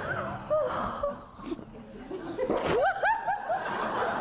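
People laughing, led by a woman's laughter, with a quick run of high-pitched laughs about two and a half seconds in.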